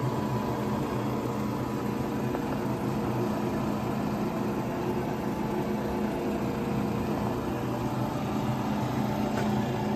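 Kearney & Trecker 420 TF-17 universal milling machine running: a steady hum from its motor and gearing, holding one even pitch throughout.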